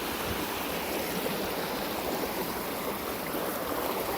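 Rain-swollen creek running high and fast, a steady rush of water.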